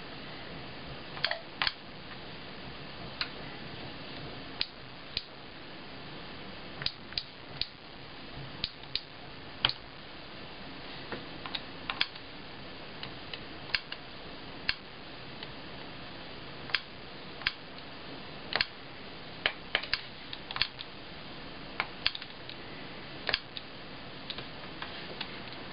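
Irregular sharp clicks, singly or two or three in quick succession, as keys are pressed and a stylus taps the touchscreen of a Sharp Mobilion HC-4500 handheld PC, over a steady faint hiss.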